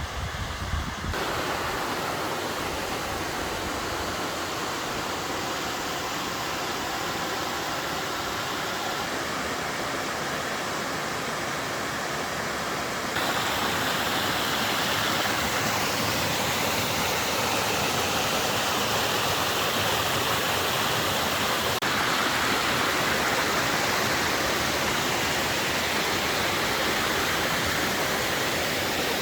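Waterfall pouring and splashing, a steady rushing that gets louder about thirteen seconds in.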